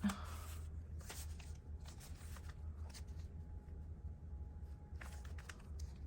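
Paper pieces being handled and shuffled on a desk: a few soft, scattered rustles over a low steady hum.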